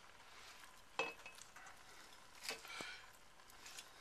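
Faint knocks and clinks of seared chuck roast being set into a stainless steel pot of vegetables and pushed into place with a carving fork: one sharp knock about a second in and two softer ones a little past halfway.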